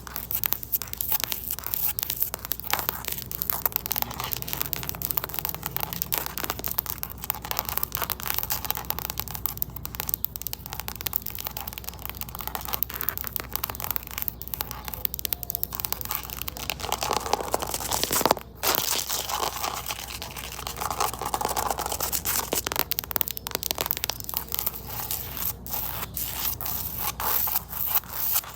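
Fingernails scratching on a surface: a dense, continuous run of rapid scratchy strokes, broken by a short pause about eighteen seconds in.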